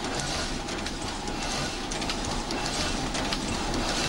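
Newspaper printing presses running: a steady mechanical clatter.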